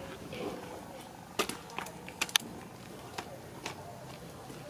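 A few sharp, dry crackles and clicks, the loudest a quick cluster a little over two seconds in, as a baby monkey picks through dry leaves and hard seeds on a tiled floor.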